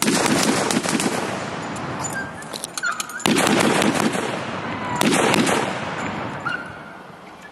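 Hand-cranked 1874 Armstrong Gatling gun firing three bursts of rapid shots, the first about two seconds long and two shorter ones after it, each ringing out as it stops.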